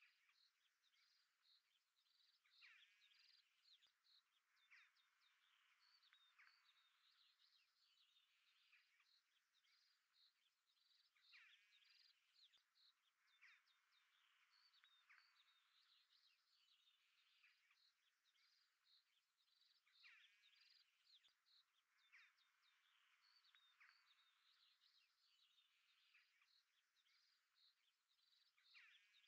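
Near silence with very faint birdsong: many short chirps and trills overlapping throughout, with nothing low in pitch underneath.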